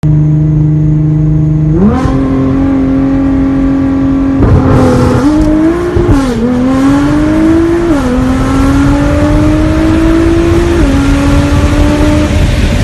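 2017 Nissan GT-R's twin-turbo V6 through an Armytrix titanium exhaust, heard from inside the cabin at speed. A steady drone steps up in pitch about two seconds in. From about four seconds the car accelerates, its note climbing and dropping back at each gear change, three times.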